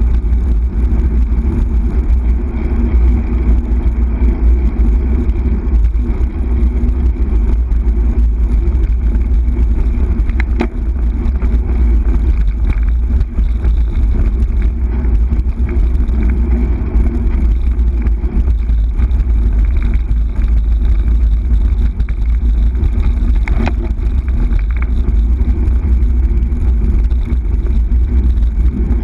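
Wind buffeting the microphone of a camera riding along on a road bike, with a steady low rumble of tyres on tarmac. A couple of short clicks cut through, about ten seconds in and again near the end.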